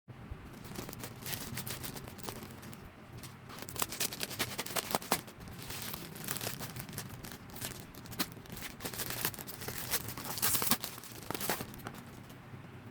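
Packaging being unwrapped by hand: irregular crinkling and tearing of wrapping, with sharp crackles that come thickest about four to five seconds in and again near the end.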